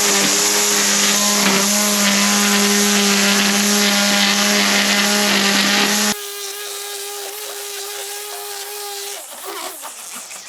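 A small-engined outdoor power tool running steadily with a loud rushing hiss over its engine note, cutting off abruptly about six seconds in; a quieter steady hum carries on after.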